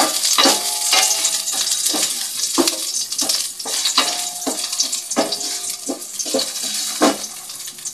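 Ginger sizzling in hot oil in a stainless steel pot while a wooden spatula stirs it, knocking on the pot about twice a second, with a brief metallic ring after each knock.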